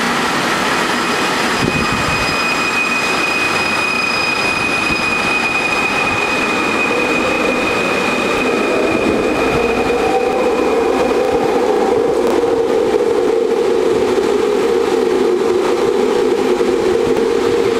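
Bombardier driverless light-metro train running, with a steady high electric whine that fades out about two-thirds of the way through while a lower hum grows louder.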